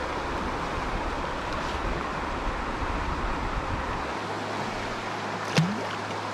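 Steady rushing of a fast mountain river's flowing water. There is one brief sharp sound about five and a half seconds in.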